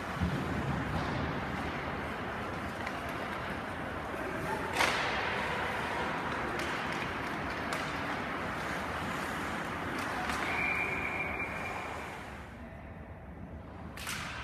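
Ice-hockey game in play heard in an arena: a steady wash of skates on ice and rink noise, with one sharp crack of stick and puck about five seconds in and a short high-pitched tone a little after ten seconds.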